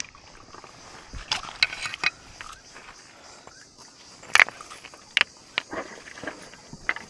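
River cobbles knocking and clacking as they are lifted and turned over by hand in shallow water, a scattering of short, sharp knocks, the loudest about four and five seconds in.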